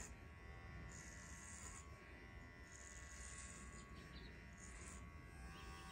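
Electric hair clipper running faintly with a steady hum as it is worked through short hair, with soft hissy swishes now and then.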